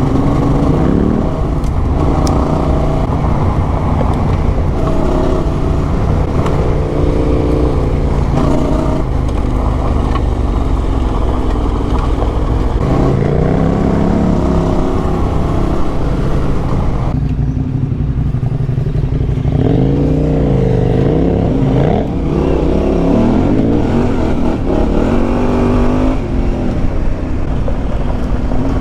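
Motorcycle engine under way on a ride, its revs rising and falling with the throttle and gear changes. The engine note drops back for a few seconds about two-thirds of the way through, then picks up again.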